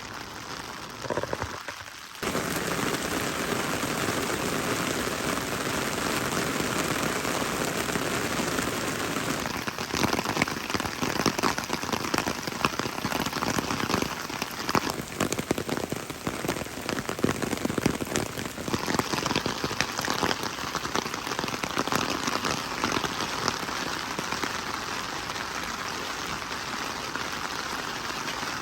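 Rain falling, a dense hiss of close drop hits that gets suddenly louder about two seconds in.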